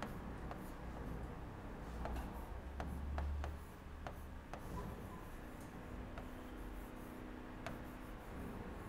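A stylus writing on a smart-board screen: irregular sharp taps as it touches down, with light scratching between them.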